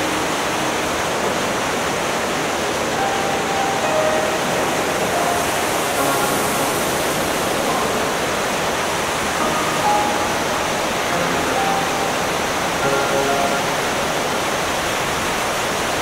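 Steady rushing wind noise of a microlight in flight, even and unchanging throughout.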